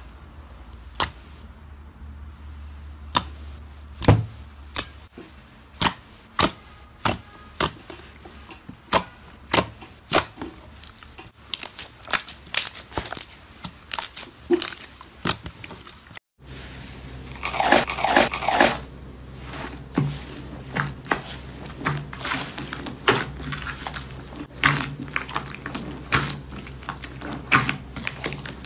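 Hands pressing and kneading slime in a glass bowl, squeezing out air pockets with sharp wet clicks and pops, about one or two a second. After a short break about halfway through, the popping comes thicker and faster as a second slime is worked.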